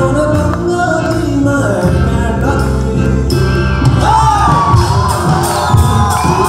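A rock band playing, with a voice singing over drums, electric guitars and keyboard.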